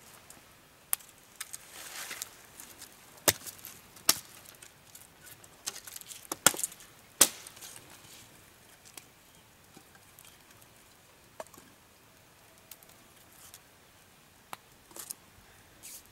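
Irregular sharp knocks and clicks, like chopping or hard objects being handled. They are thickest and loudest in the first half, then sparse.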